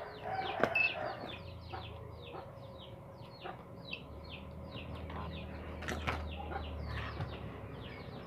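Birds chirping rapidly in the background: short high falling chirps, about three a second. A few sharp clicks, and a low hum that sets in about halfway through.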